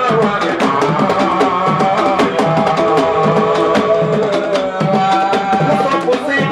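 A man singing a long, held, wavering melody into a microphone, with drums beating along several times a second.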